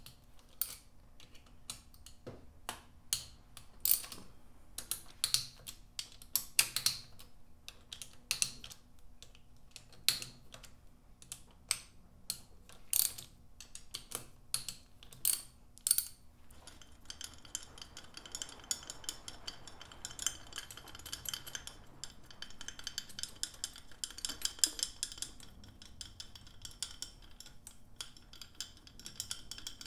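Ratchet and socket loosening the 10 mm bolts on a Honda CB550's cam cover: scattered sharp clicks and small metal knocks for the first half, then denser, continuous clicking through the second half.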